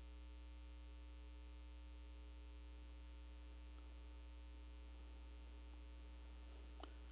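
Near silence: a steady low electrical mains hum in the recording, with a faint click near the end.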